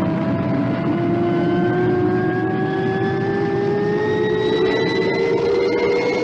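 A vehicle accelerating: a steady rush of noise under a whine that rises slowly and evenly in pitch.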